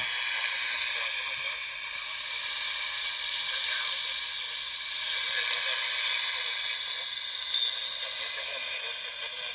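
Steady shortwave static hiss from a homemade FU-25 vacuum-tube shortwave radio, playing through its small 8-ohm speaker.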